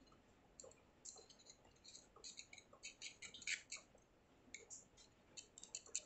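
Faint, irregular clicks and ticks of a screwdriver tip working the small metal screw at the centre of a Gomexus knob on a baitcasting reel handle, with the clicks coming in quick clusters.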